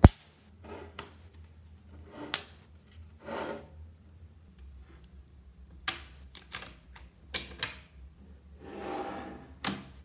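Blocks of small metal magnetic balls snapping together with sharp clicks: the loudest comes right at the start, and a quick run of them follows about six to eight seconds in. Twice there is a longer rattling scrape as ball faces slide over one another.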